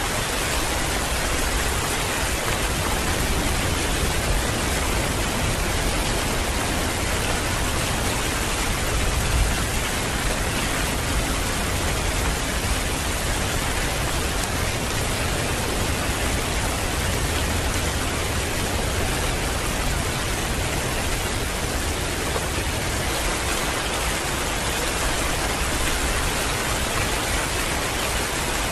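Heavy rain falling in a steady downpour: a dense, even hiss that does not let up.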